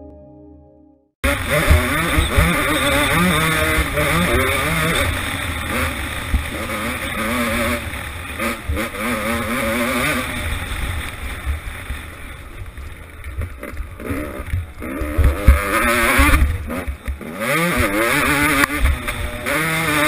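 Motocross bike engine heard onboard while ridden, its pitch sweeping up and dropping again and again as it accelerates and changes gear. It starts suddenly about a second in, after a brief fade of music.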